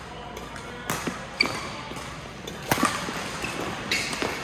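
Badminton rally: rackets strike the shuttlecock in a run of sharp hits about a second apart, with a few short squeaks from shoes on the court floor.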